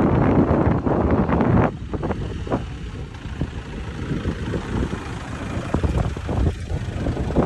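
Toyota Hilux Revo pickup driving past close by, its engine and tyres mixed with wind buffeting the microphone, loudest in the first couple of seconds.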